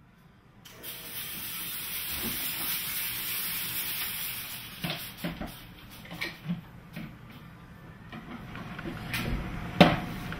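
Steady high hiss that starts just under a second in and thins out after a few seconds, with scattered light clicks and knocks and one sharp knock near the end.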